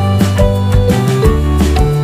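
Background music with a steady beat and a melody of short notes.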